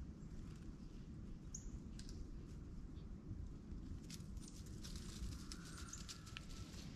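Gray squirrel moving over dry fallen leaves: a scatter of light crackles and clicks in the second half, over a low steady outdoor rumble. A single short high chirp comes about one and a half seconds in.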